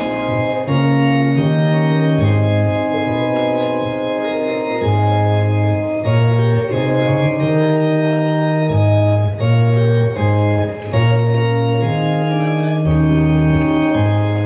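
Yamaha electronic keyboard playing held organ-voice chords over a bass line, the chords changing about once a second.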